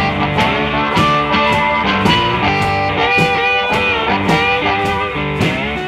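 Rock music with guitar over a steady beat: bending guitar notes above regular drum strokes about twice a second.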